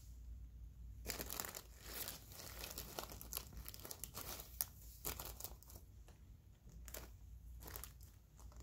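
Crinkling and rustling from nitrile-gloved hands handling the paper drape and instruments during suturing: a run of brief crackles starting about a second in.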